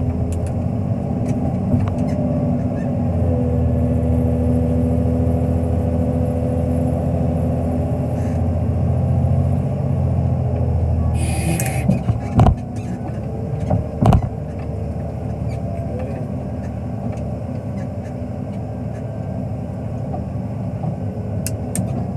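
Wheel loader's diesel engine running, heard from the cab, working harder for several seconds before easing off. A short hiss comes near the middle, followed by two sharp knocks about two seconds apart.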